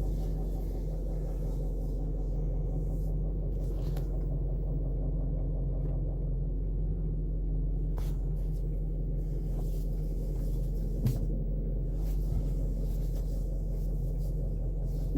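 Range Rover 4.4 TDV8 V8 diesel idling, heard from inside the cabin while stationary in reverse with the steering at full right lock, with a faint, low clicking mixed into the steady hum. This is the clicking that a garage thinks comes from the gearbox. There is one sharper knock about eleven seconds in.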